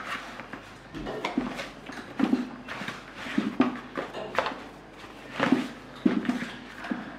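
Hands kneading stiff wheat-flour prosphoron dough in a basin: irregular thuds and squelches as the dough is pressed and pushed against the bowl, roughly one or two a second.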